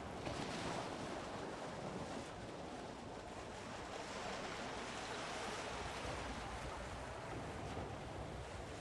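Steady rushing of water churned by a lake passenger motor ship as it comes in alongside the landing stage, with a low rumble underneath.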